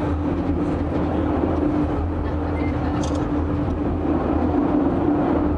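Funicular railway car running along its track, heard from inside the cabin: a steady rumble with an even hum.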